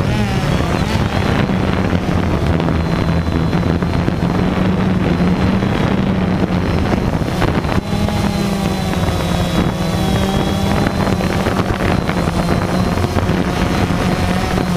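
FPV racing drone's motors and propellers running with a steady buzzing hum, picked up by the onboard camera along with wind noise on its microphone; the pitch shifts as the throttle changes, just after the start and again around eight to ten seconds in.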